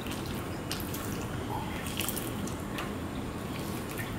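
Fingers mixing rice with mashed okra and potato on a steel plate: soft wet squishing with scattered small clicks, over a steady background hiss.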